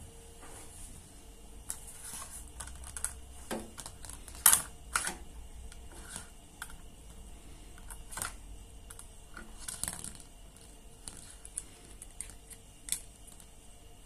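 Plastic-framed 3D glasses clicking and scraping on a laminate floor as a cat paws and bats at them: irregular light clicks and taps, the loudest about four and a half seconds in.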